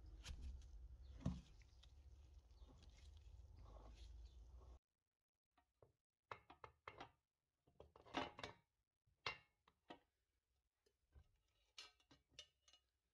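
Faint clicks, taps and knocks of a coin-counting machine's metal parts being handled, with one sharper knock about a second in. A low background hum stops suddenly about five seconds in, and after that the taps and clinks come in scattered small clusters.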